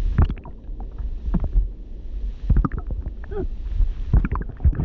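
A performer's simulated underwater drowning: bubbling and gurgling with scattered pops and a few short pitched glubs over a low rumble.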